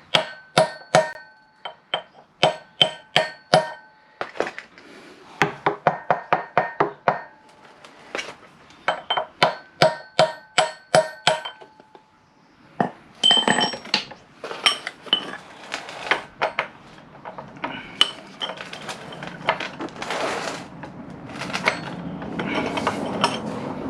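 Volleys of ringing metal-on-metal hammer blows, several a second with short pauses, the later ones denser and duller, struck to break loose a very tight front-wheel bolt on a motorcycle.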